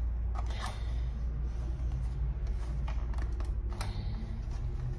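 Scattered short plastic clicks and creaks from a rechargeable LED lamp's casing as it is turned over and pried at, looking for the way to open it, over a steady low hum.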